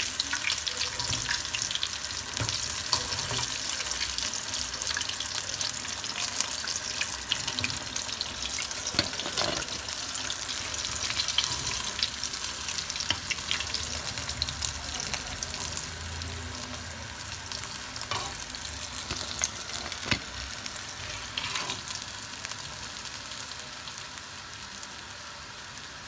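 Battered chicken wings sizzling and crackling in deep-frying oil in a steel wok, with a few sharp knocks of a slotted steel spatula against the pan as the pieces are lifted out. The sizzle slowly dies down toward the end.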